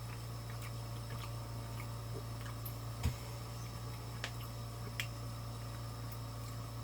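Faint eating sounds: soft wet mouth clicks and chewing, with a small thump about three seconds in, over a steady low hum.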